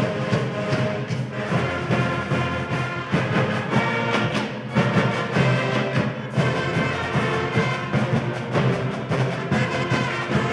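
University sports band playing a loud piece, with brass and drums keeping a steady beat.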